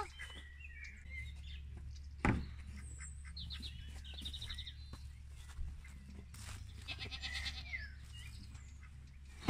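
Small birds sing two short, rapid high trills, with a single sharp knock about two seconds in, which is the loudest sound.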